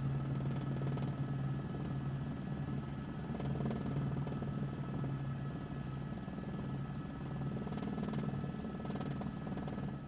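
Steady drone of a helicopter's engine and rotors heard from on board: a strong low hum that swells and eases, with a couple of steady higher whining tones over it.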